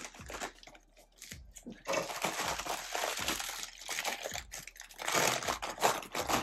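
Plastic Doritos chip bag crinkling as a gloved hand rummages inside it for chips. The crackling is scattered at first and turns dense and continuous from about two seconds in.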